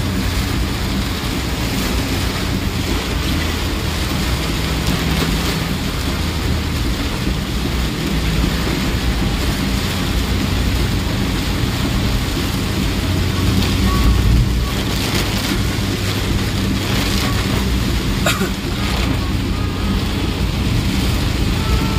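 Heavy rain on a moving vehicle, heard from inside it: a steady rush of rain and wet-road noise over a low, constant engine rumble, with a few short clicks near the end.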